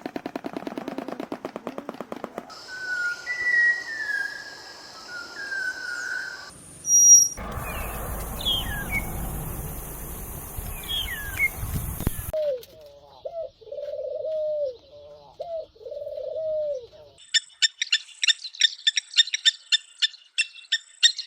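Calls of several different bird species played one after another, each recording cut off abruptly. First comes a fast rattle, then slurred whistles, then chirps over a hissing background, then a run of low repeated notes, and finally a rapid series of sharp, high chirps.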